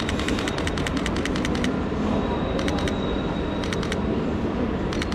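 Canon EOS R's shutter firing in rapid bursts: a long run of quick clicks in the first second and a half, then three short bursts of three or four clicks. Underneath, a steady low rumble of a train in the station.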